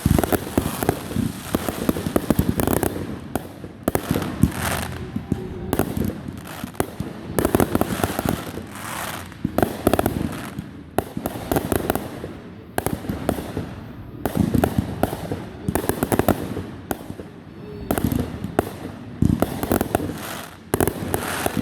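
Fireworks going off in a rapid, continuous series of bangs and pops.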